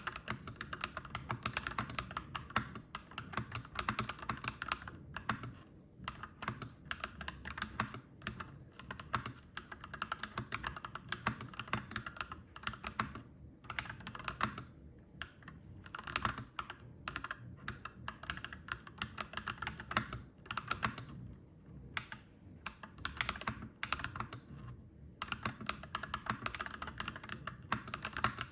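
Clacky mechanical keyboard being typed on in fast, steady runs of keystrokes, broken by a few short pauses.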